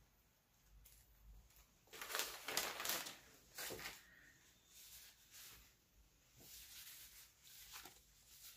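A heat-sealed plastic bag crinkling and rustling as it is handled and pulled open by hand, in several short bursts, loudest about two to three seconds in.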